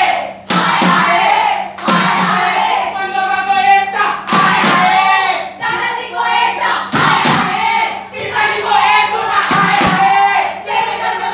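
A group of performers singing and chanting together, held sung notes alternating with shouted lines, punctuated by beats on a hand-held frame drum (dafli).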